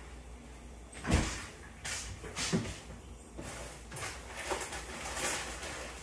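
Kitchen handling clatter: a series of separate knocks and bumps, the loudest a heavy thump about a second in.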